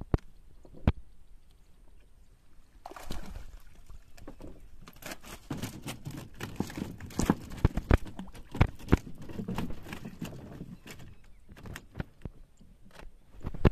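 Water sloshing and splashing in uneven bursts, mixed with many sharp knocks and clicks. The activity starts about three seconds in and is busiest in the middle.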